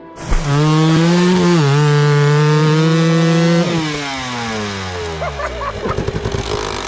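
Two-stroke enduro dirt bike engine held at high revs as the rear wheel spins in mud. After about three and a half seconds the revs fall away, and it runs low with irregular popping.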